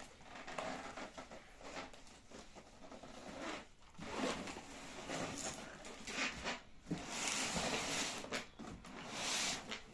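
Packaging being torn and rustled as a sewing machine is unboxed: a run of irregular rasping, ripping strokes, the loudest about seven to nine and a half seconds in.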